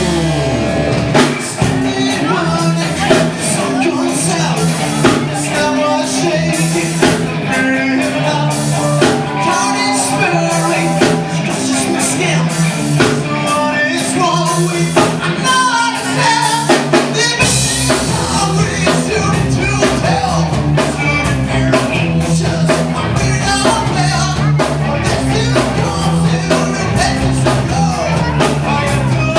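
A rock band playing live, with a drum kit keeping a steady beat over bass and guitar. The low end comes in fuller a little past halfway through.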